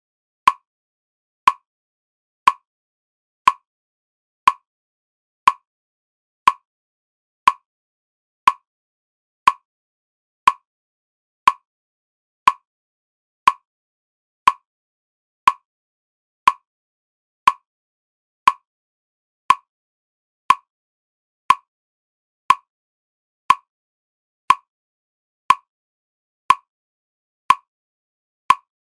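A short, sharp tick repeating exactly once a second, like a metronome click, with silence between the ticks.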